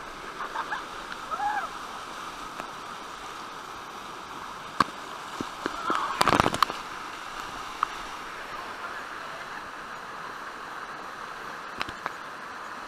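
Steady rushing of a small waterfall pouring into a river pool. About six seconds in, a loud burst of splashing close to the microphone as water spray hits the camera.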